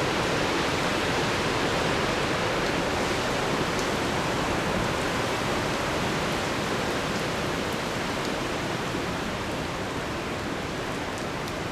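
Hurricane wind gusting in a steady rush of noise that eases off slightly toward the end.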